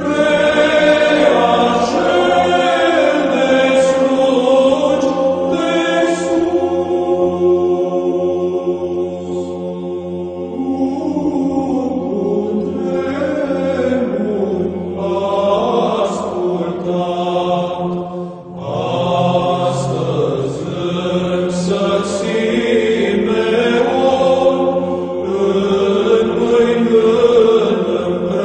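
Orthodox church chant: voices sing a slow melody over a steady held drone note, with a short break between phrases about two-thirds of the way through.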